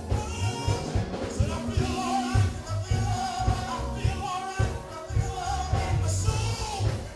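Live gospel praise music: a man sings lead into a microphone over a band with a strong, steady bass beat, the praise team singing with him.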